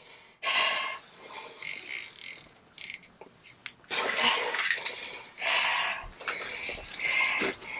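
Water splashing in an ice-fishing hole in several short, irregular bursts as a hooked splake struggles at the hole.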